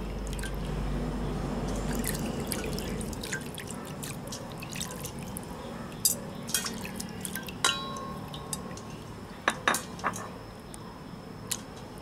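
Water sloshing and dripping in a stainless steel bowl as raw pig brains are slid in off a plate, then a run of sharp clinks against the metal, one leaving a brief ring.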